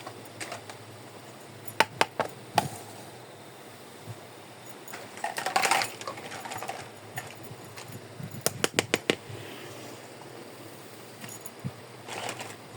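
Small hard plastic pieces of a miniature toy kitchen set clicking and clattering as they are handled, in scattered clusters of sharp taps, with a soft rustle near the end.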